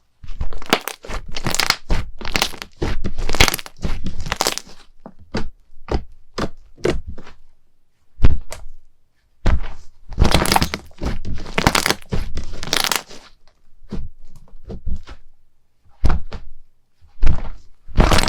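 Slime worked by hand, giving irregular runs of crackling and sharp cracks, with short pauses between the runs.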